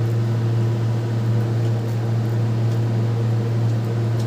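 A steady low mechanical hum, with a few fainter steady tones above it and a light hiss, unchanging throughout.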